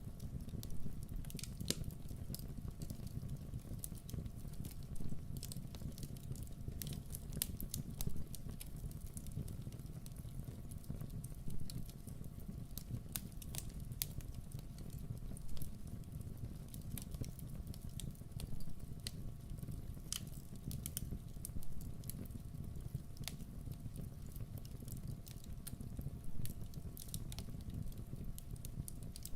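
Campfire burning: wood crackling with many small irregular snaps and a few louder pops, over a low steady rumble of the flames.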